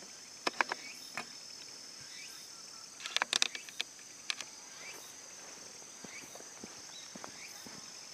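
Insects trilling in a steady high chorus, broken by a few short sharp clicks and taps, two near the start and a quick cluster a little before the middle.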